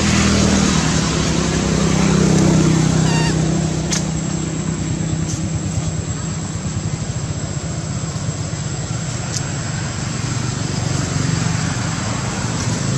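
A motor engine running with a steady low drone that swells over the first few seconds and then holds level. A thin steady high whine sits above it, with a few faint clicks.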